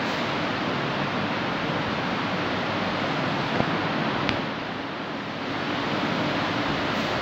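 Steady rushing noise with no clear pitch, dipping a little about five seconds in, with one faint tick a little after four seconds.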